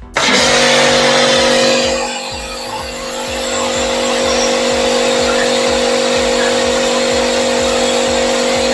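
Benz BZ-8548 high-pressure washer running and spraying: a steady motor hum under the loud hiss of the water jet, which starts abruptly just after the beginning. The hiss eases for a moment about two seconds in, then holds steady.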